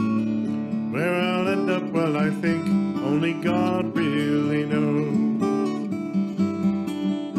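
A steel-string acoustic guitar being played, with plucked and strummed notes ringing on throughout. From about one second in to about five seconds, a gliding melody line sits louder on top of it.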